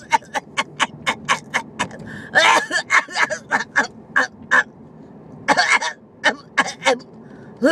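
A woman's hacking cough in fits of rapid, short coughs, several a second, with a few harder, voiced coughs about two and a half and five and a half seconds in: a pneumonia cough.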